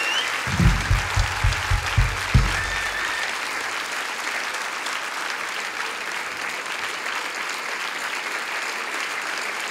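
Studio audience applauding steadily, with a quick run of about seven low thumps in the first two and a half seconds.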